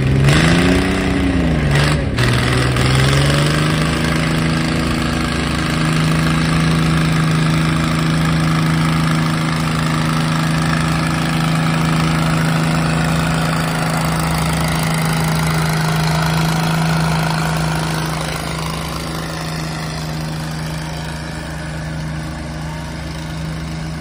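Wards farm tractor engine pulling a sled of concrete blocks: the pitch rises and dips in the first couple of seconds, then holds steady under load. The sound grows fainter in the last few seconds as the tractor moves away.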